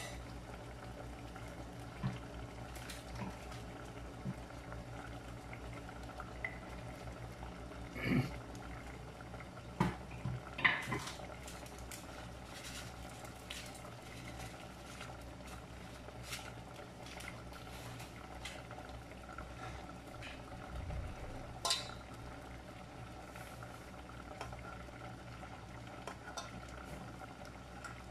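Coconut-milk sauce bubbling in an aluminium pot, with a few sharp clinks of a metal spoon against the pot as seasoning goes in and the stew is stirred.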